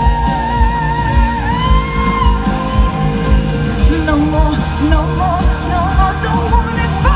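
Live pop-rock band with a woman singing: long, wavering held notes for the first couple of seconds, then shorter, broken phrases, over a steady drum beat.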